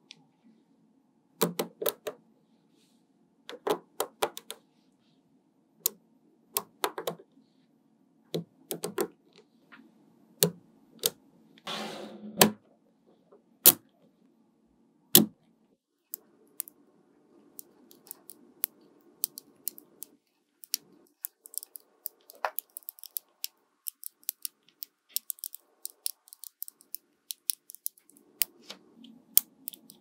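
Small magnetic balls clicking and snapping together as they are set in place: sharp separate clicks every second or two at first, with a brief rattle near the middle, then a run of lighter, quicker clicks in the second half.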